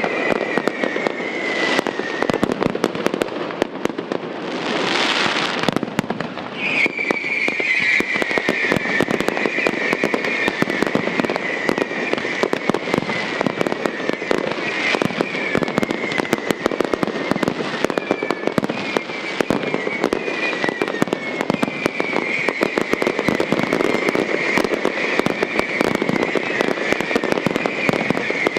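Fireworks display: dense crackling and popping of bursting shells. A short hiss comes about five seconds in. From about six seconds in, a high, wavering whistling tone runs on under the crackle and sinks slowly in pitch.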